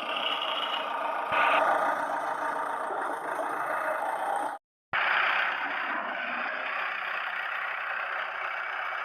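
Small motor of a remote-control toy truck running with a steady whir, broken by a short silent cut a little past halfway.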